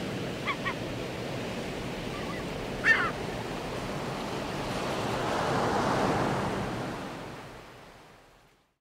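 Ocean surf sound effect, a steady rushing of waves with a few short chirps in the first three seconds. It swells about six seconds in, then fades out.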